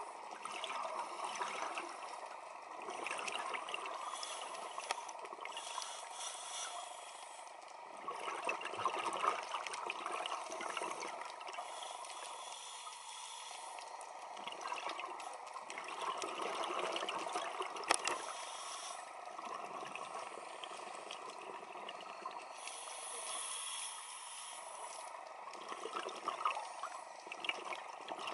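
Underwater recording of a scuba diver breathing through a regulator, with exhaled bubbles rushing and bubbling out. The sound swells and fades every several seconds with each breath.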